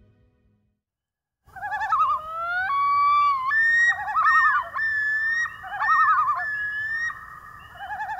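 Common loons calling, starting about a second and a half in: long wailing notes that jump and glide in pitch, overlapping with quavering tremolo calls.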